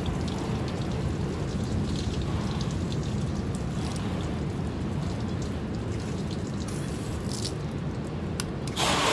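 Water from a garden hose running into a bucket, over a steady low rumble. Just before the end a louder, hissier rush starts.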